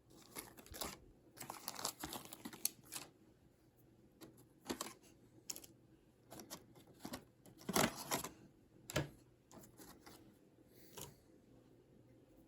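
Small carburetor tuning parts and gaskets in plastic packets being handled and sorted: scattered clicks, taps and crinkling, loudest about eight and nine seconds in.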